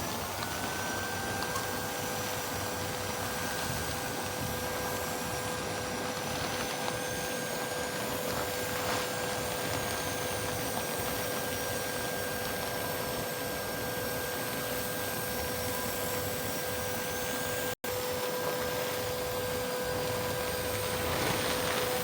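TIG welding arc burning steadily on a root pass: a continuous electric hiss with a steady high whine that rises into pitch as the arc starts. It cuts out for an instant about eighteen seconds in.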